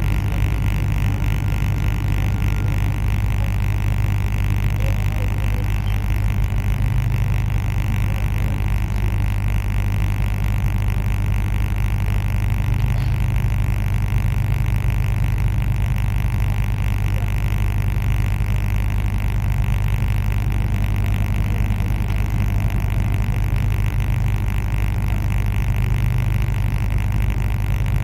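Steady low rumble of a TCDD locomotive-hauled regional train, heard from on board, even and unbroken throughout.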